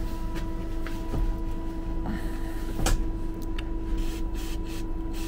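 Steady electrical hum with a few light clicks and one sharper knock about three seconds in, from small hand work on a connector.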